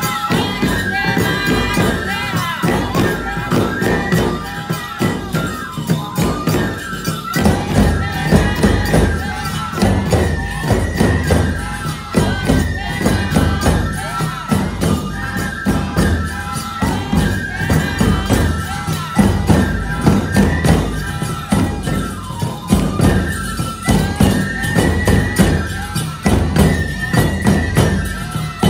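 Aomori nebuta bayashi festival music played live: bamboo flutes carry a repeating melody over taiko drums and jingling hand cymbals in a steady dance rhythm. The drums grow louder about seven seconds in.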